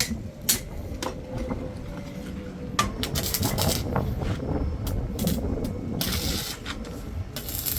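Metal clinks and a few short rasping scrapes, as of steel knife blades being handled and moved against each other.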